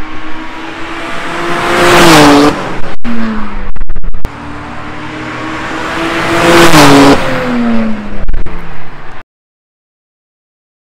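BMW 335i's turbocharged inline-six with catless downpipes and a muffler delete, accelerating hard twice, its pitch climbing and then dropping away each time. Sharp crackles come between the two pulls, and the sound cuts off suddenly near the end.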